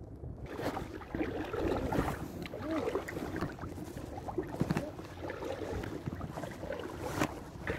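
Shallow seawater lapping and sloshing around a wading angler's body, with a few sharp clicks.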